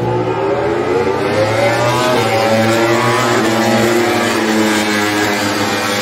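MotoGP racing motorcycles running at speed, more than one at once, their high-revving engine notes rising and falling over one another.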